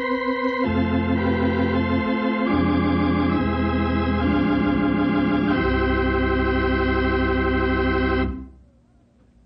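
Organ music bridge: sustained held chords that change about three times and die away about eight seconds in, marking a scene change in an old-time radio drama.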